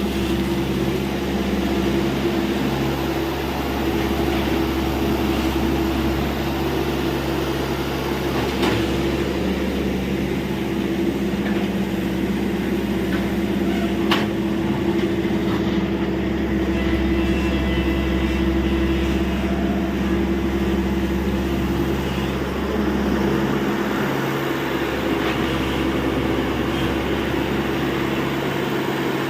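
Tata Hitachi EX70 excavator's diesel engine running steadily while it digs. Two short knocks, one about nine seconds in and a sharper one about fourteen seconds in.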